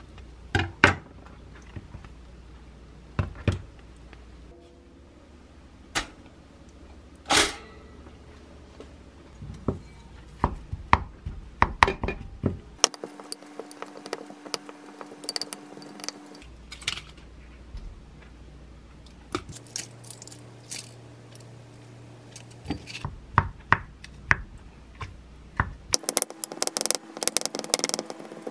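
Kitchen prep sounds in short cuts. First a knife cutting through a bagel on a wooden cutting board, with separate knocks. Then a wooden spoon mashing kabocha squash and boiled egg in a glass bowl, its quick clicks and taps against the glass densest near the end.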